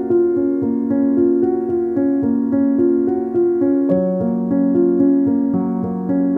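Background music: a keyboard melody of short, evenly paced notes over a sustained lower line that moves to a new note about four seconds in.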